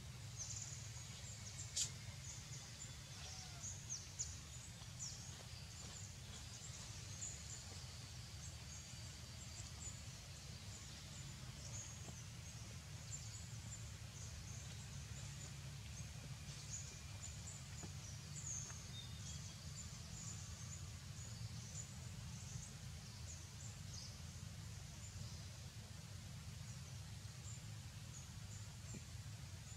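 Faint outdoor ambience: a low steady rumble with scattered short, high-pitched chirps throughout, and a sharp click about two seconds in.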